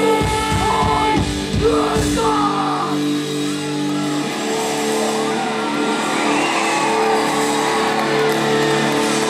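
Live rock band playing. Heavy drum hits stop about two and a half seconds in, leaving held chords with voices singing and shouting over them.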